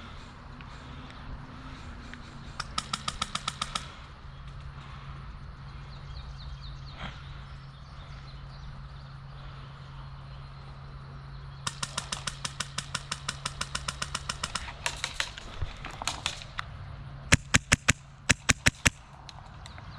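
Airsoft electric guns firing on full auto in rapid bursts of clicking shots: a short burst, a longer burst of about three seconds, then several louder, sharper shots near the end. A steady low hum runs underneath.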